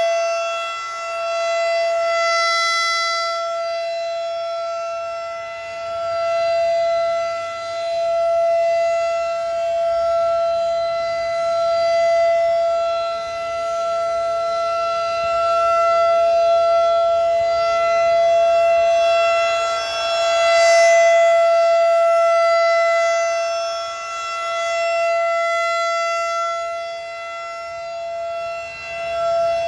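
A Federal Signal 2001-DC rotating outdoor warning siren sounds a steady single tone of about 670 Hz: the steady alert signal of a siren test. Its loudness swells and fades as the rotating head sweeps toward and away from the listener.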